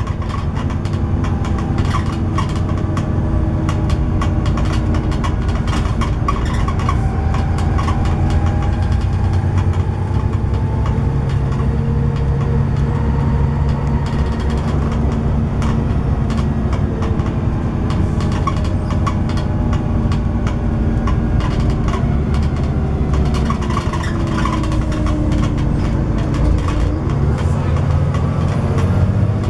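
Volvo B7TL double-decker bus under way, heard from the upper deck. Its diesel engine drones steadily, its pitch slowly rising and falling with speed, over road noise, with frequent small clicks and rattles from the body and fittings.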